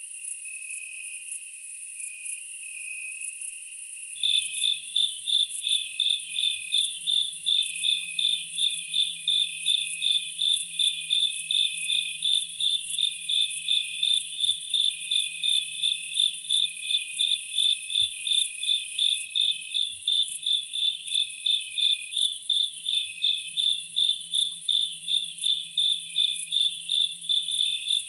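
Insects chirping: a steady high buzz throughout, and from about four seconds in a louder, regular pulsing chirp about twice a second.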